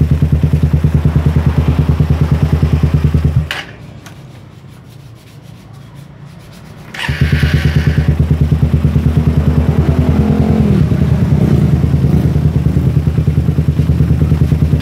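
Suzuki Satria FU's single-cylinder four-stroke engine, running through a long aftermarket header with an ex-CBR silencer, idling with a deep pulse. It is switched off about three seconds in, then restarted on the electric starter a few seconds later. With the exhaust-cam decompressor removed, it catches at once after a short crank and settles back to idle with a few light throttle blips.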